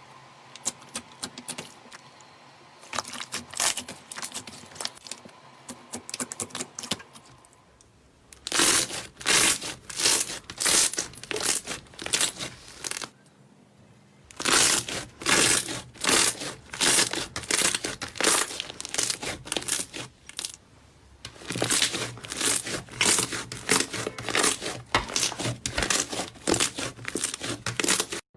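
Slime being squeezed and pressed by hand, making crackling, popping clicks. It starts as a light patter, then comes in loud bursts about twice a second, with brief breaks between stretches.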